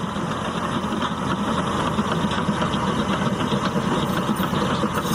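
Caterpillar D6T bulldozer's diesel engine running steadily under load as the crawler pushes a pile of dirt with its blade.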